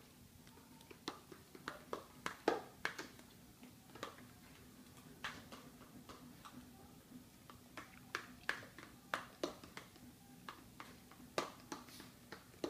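Cake batter being mixed by hand in a plastic bowl: irregular sharp clicks and taps, some in quick clusters, over a faint steady hum.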